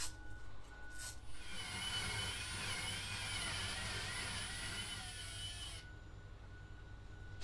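Power drill driving a 2-inch hole saw through a black plastic tweeter mounting bracket: a grinding cut with a wavering whine that runs about four seconds and stops abruptly. Two sharp clicks come just before the cut.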